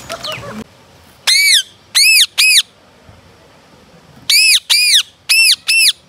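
Indian ringneck parakeets giving loud, harsh squawks: three about a second in, then four more in quick succession near the end, each a short call that rises and then falls in pitch.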